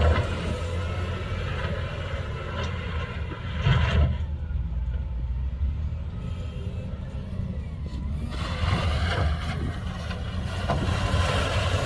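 Heavy diesel construction machinery running with a steady low rumble. There is a loud clunk about four seconds in, and a rougher, noisier stretch in the last few seconds.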